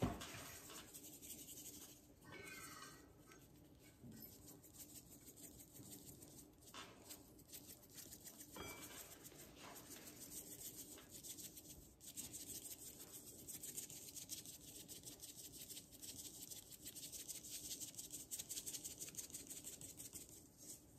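Black pepper being shaken from a spice shaker over a rack of ribs: a faint, fast, fine rattle of granules and shaker, with a couple of brief pauses.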